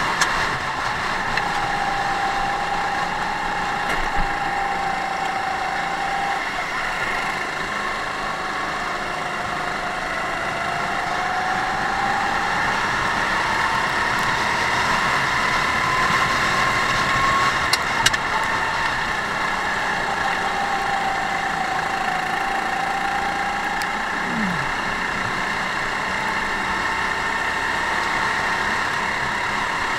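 Onboard sound of a racing go-kart's engine running under load, its pitch dipping and then climbing slowly as the kart slows for corners and speeds up along the straights, over a steady rushing noise. A few sharp clicks a little past the middle.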